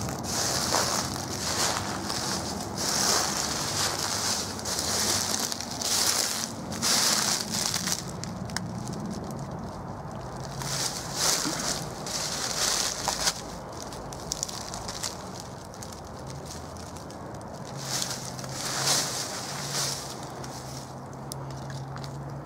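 Footsteps crunching through dry fallen leaves, an irregular series of crunches that comes thick in the first eight seconds, then only now and then.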